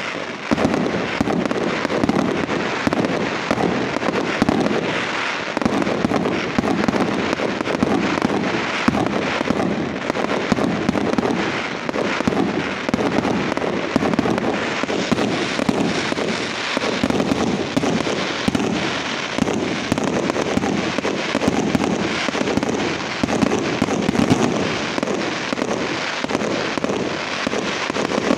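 Aerial fireworks display: a dense, unbroken barrage of shell bursts and crackling stars, many bangs a second with no pause.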